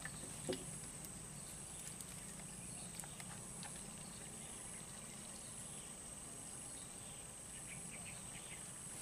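Quiet swamp ambience: faint, steady high-pitched insect chirring with a higher note pulsing on and off about once a second, and a soft knock about half a second in.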